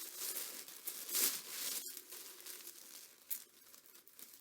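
Tissue paper crinkling and rustling as a wrapped item is unwrapped by hand. It is busier in the first two seconds, then thins to faint, scattered rustles.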